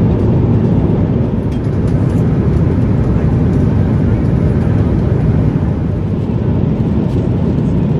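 Steady, low rushing drone of a Boeing 777-300 airliner's cabin in cruise: airflow noise and the two Pratt & Whitney PW4098 engines, heard from inside the cabin.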